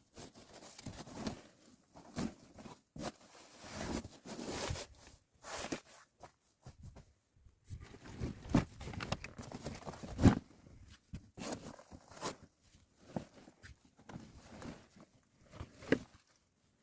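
Irregular rustling and scraping from hands at work, with scattered sharp knocks, the loudest about ten seconds in.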